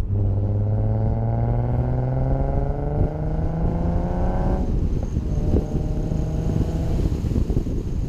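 Nissan 370Z's 3.7-litre V6 through a Cobra Sport centre and rear-section exhaust, pulling hard with its note rising steadily. About halfway through the note drops sharply and the engine runs on more quietly, then fades under wind and road noise near the end.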